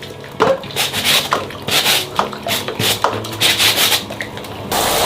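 A brush scrubbing a dirty air conditioner part clean, in short scratchy strokes about two to three a second. Near the end a steady rush of running water starts as the rinse begins.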